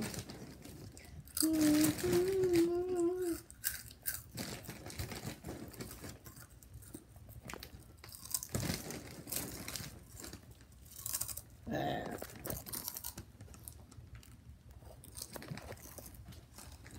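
A bag of Lay's Poppables potato snacks crinkling and the chips crunching as they are eaten, in irregular bursts of crackle. A child's brief vocal sound comes about one and a half seconds in and again near twelve seconds.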